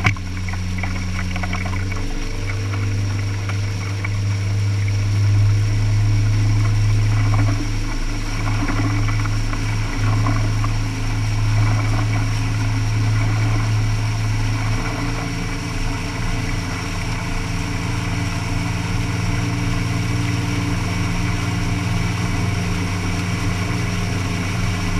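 Boat engine running steadily under way, a deep, even drone whose note shifts slightly about two seconds in and again past the middle. Water rushes and splashes along the hull.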